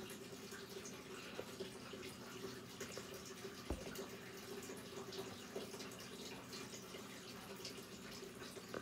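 Faint steady trickle of water from an aquarium filter over a low steady hum, with scattered soft taps and a single low thump a little under four seconds in.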